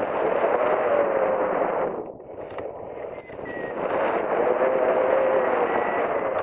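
Wind rushing over the camera microphone of a hang glider in flight. It swells loud twice, dipping briefly about two seconds in.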